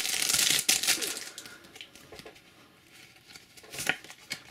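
Foil trading-card booster pack wrapper crinkling as it is torn open, loud for about the first second. Then it goes much quieter, with a few light clicks and taps of cards being handled.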